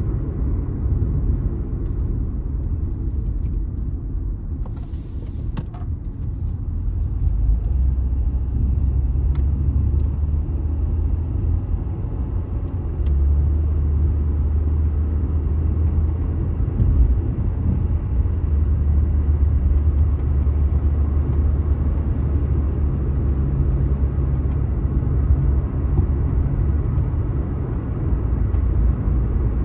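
Road noise of a car driving, heard from inside the cabin: a steady low rumble of tyres and engine that swells and eases a little with speed.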